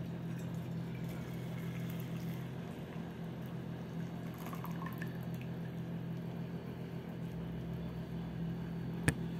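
Dissolved gelatin, made with boiled water, poured from an aluminium pot into a glass mould: a steady quiet stream of liquid over a low steady hum. A single sharp click near the end.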